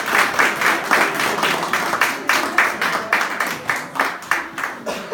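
Applause from a group of people clapping, gradually dying away near the end.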